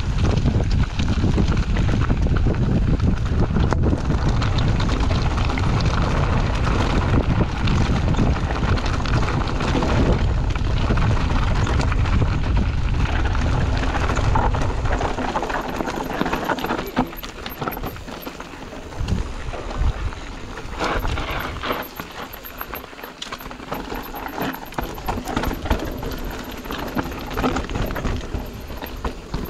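Mountain bike descending a rocky dirt trail: a low rumble of wind on the microphone and tyres over gravel, easing about halfway through to the knocking and rattling of the bike over stones.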